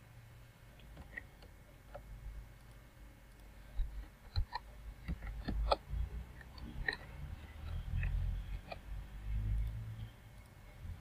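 Scattered clicks of a computer mouse and keyboard, several close together in the middle, over a faint low rumble.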